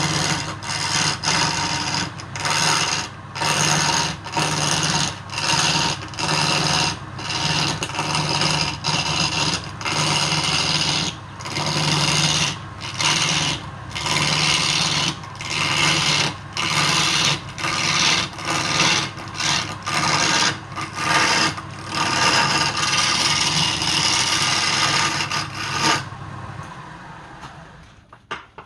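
Wood lathe running, with a tool scraping against the spinning wood in short repeated strokes, about three every two seconds. The strokes stop near the end and the sound fades away.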